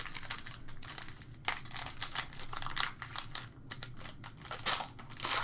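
A trading-card pack wrapper crinkling and tearing as it is opened by hand, an irregular run of crackles.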